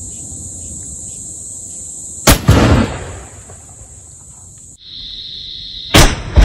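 Two gunshots from a desi topidar gun, a homemade percussion-cap muzzleloader firing shot, about four seconds apart. Each is a sharp blast followed by a rumbling tail that dies away over about a second.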